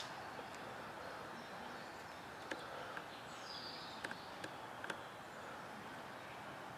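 Quiet outdoor ambience: a faint steady hiss with a bird's short falling chirp about three seconds in, and a few light clicks scattered through the middle.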